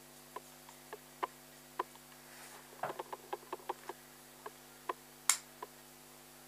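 Light, irregular ticks and taps of a Copic marker working on paper during colouring, with a quick cluster of taps around the middle and one sharper, louder click a little after five seconds in.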